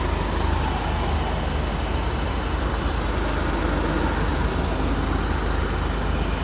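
Steady low rumble of a 2012 VW Golf GTI heard from inside the cabin, with an even wash of noise over it and no distinct knocks.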